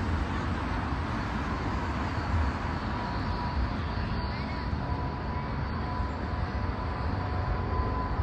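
Boeing 777-200ER jet engines at takeoff power, a steady rumble with a thin steady whine that comes in a few seconds in.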